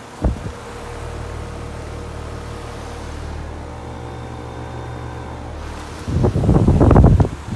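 Carrier Comfort central air conditioner outdoor unit starting up: a click just after the start, then a steady low hum from the compressor. About six seconds in, a loud rush of air buffets the microphone.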